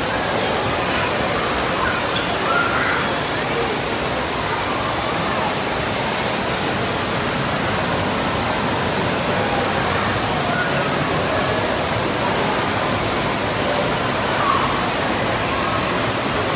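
Steady rush of water pouring and splashing in an indoor water-park pool area, with indistinct crowd voices mixed in.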